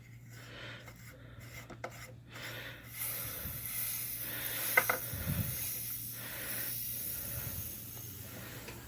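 Compressed air hissing steadily from a small leak at a fitting on the Ridgid air compressor's hose line, starting about three seconds in after a few handling clicks. The joint is leaking a little and needs thread tape.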